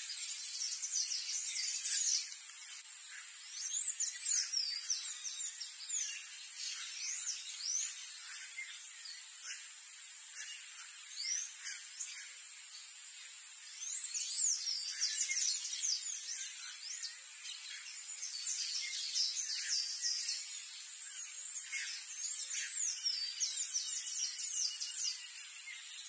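A steady high-pitched hiss with clusters of quick, thin bird chirps and short gliding whistles over it, busiest a few seconds in and through the second half.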